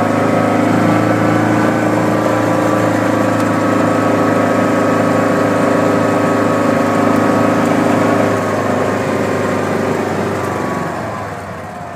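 Kawasaki Mule utility vehicle's engine running steadily under way, heard from on board; about eight or nine seconds in it eases off and gets quieter.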